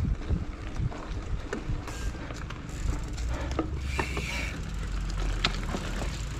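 Mountain bike riding over rough ground: a constant low rumble of tyres and wind on the microphone, with scattered knocks and rattles from the bike and a brief higher buzz about four seconds in.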